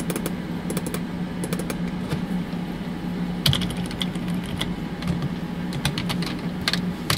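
Computer keyboard keys clicking in several short bursts of typing.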